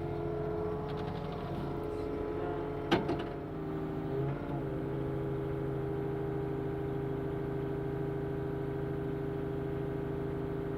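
Daewoo Solar 035 mini excavator's diesel engine running steadily while the hydraulics lift the arm. A single sharp knock comes about three seconds in, and the engine note shifts briefly about a second later, as under changing hydraulic load.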